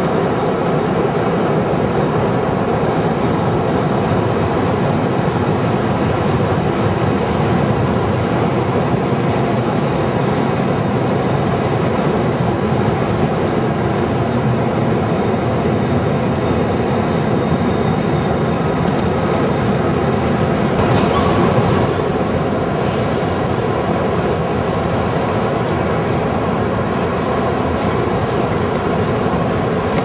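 Steady loud city rumble with a faint hum running under it, and a brief brighter rush a little past two-thirds of the way through.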